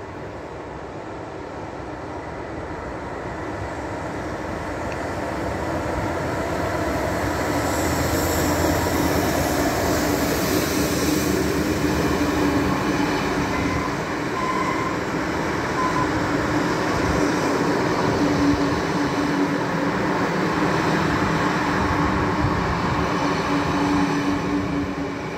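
A Class 66 diesel locomotive approaches and passes with its engine running, followed by a long rake of open box wagons rolling by with a steady rumble and rattle of wheels on rail. The sound builds over the first eight seconds or so, stays loud while the wagons pass, and falls away near the end.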